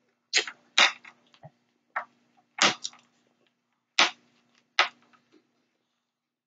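Tableware clicking and clacking during a meal: about six short, sharp knocks spread over five seconds, then it stops, over a faint steady hum.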